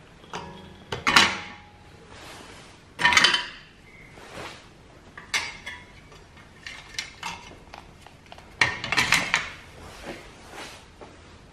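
Metal objects clinking and knocking together, a dozen or so irregular strikes, some of them ringing briefly. The loudest come about a second in, about three seconds in, and near the end.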